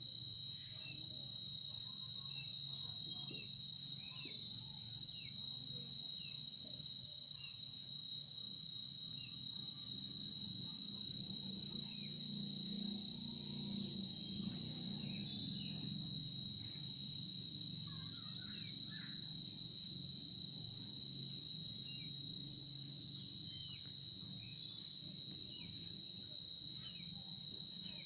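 Insects keeping up a steady, high-pitched drone, with scattered short chirps over it and a low, even rumble beneath.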